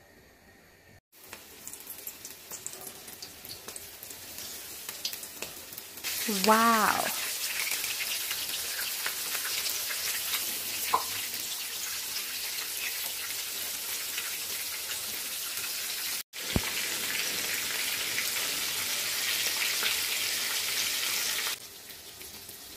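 Breadcrumb-coated prawns deep-frying in hot oil in a wok: a steady sizzle that grows louder about six seconds in and drops back near the end.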